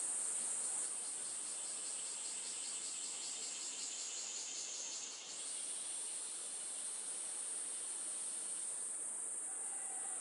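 Summer cicada chorus: a steady high-pitched drone, with a second, pulsing insect call underneath that stops about a second before the end.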